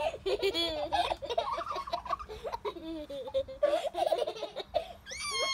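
Young children laughing and giggling in choppy bursts, with a high-pitched squeal near the end.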